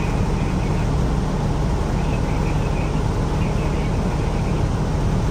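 City bus engine running with a steady low drone, mixed with road noise.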